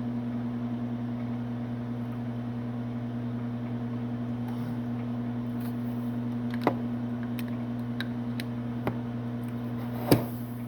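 A steady electrical hum from a running kitchen appliance, with a few sharp clicks in the second half and a louder knock near the end.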